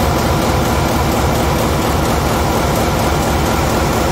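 Loud, steady din of a running cruise-ship main diesel engine heard up close in the engine room, with a fast low pulsing throb under the general machinery noise.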